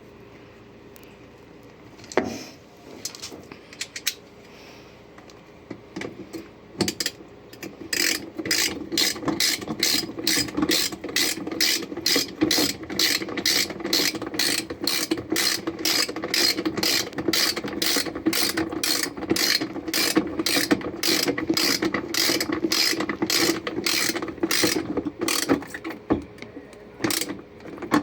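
Ratchet wrench tightening bolts on a washing machine's panel. A few scattered clicks and knocks come first, then steady ratcheting at about two to three clicks a second for most of the time, stopping shortly before the end.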